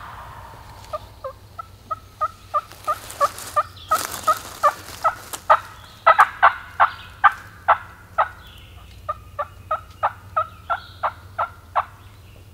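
A long, even run of turkey yelps, about three notes a second, with a short break a little past the middle.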